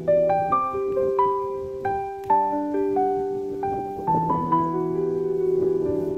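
Background piano music: a gentle melody of single notes stepping up and down over sustained lower chords.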